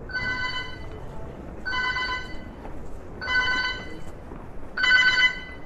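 Electronic ringing alert tone sounding over and over, each trilling ring under a second long and repeating about every second and a half.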